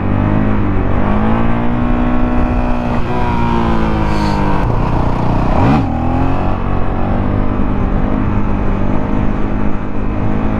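Honda CRF450L's single-cylinder four-stroke engine pulling under throttle in third gear through a wheelie, its pitch rising and then holding steady. About halfway through the pitch drops sharply and comes straight back up. Wind rush on a helmet-mounted microphone runs underneath.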